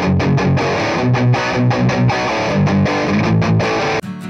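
Electric guitar played through an amplifier, picked chords and low notes in a steady repeating rhythm, as heard through an Audio-Technica AT4040 large-diaphragm condenser microphone. About four seconds in it cuts suddenly to an acoustic guitar being strummed.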